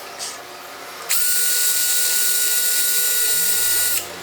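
A small high-speed power tool runs with a steady high whine for about three seconds. It starts about a second in and stops abruptly just before the end.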